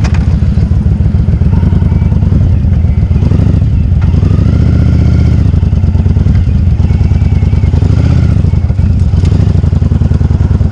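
Motorcycle engine idling steadily just after being started, a fast, even firing pulse.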